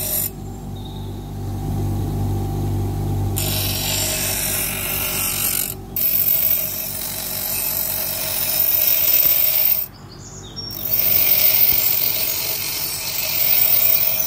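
Bench grinder motor running steadily while a steel knife blank cut from a circular saw blade is ground on its wheel. The grinding hiss breaks off three times as the blade is lifted from the wheel, for about three seconds just after the start, briefly mid-way and again for under a second.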